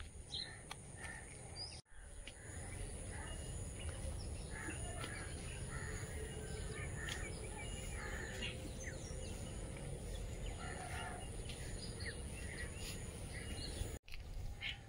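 Outdoor rural ambience: scattered bird chirps and calls over a steady low background hum.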